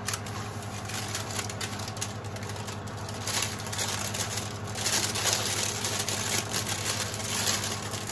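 Parchment paper crinkling and rustling as a baked flatbread is lifted on it off a metal oven tray. The rustling grows louder about three seconds in and again from about five seconds to near the end, over a steady low hum.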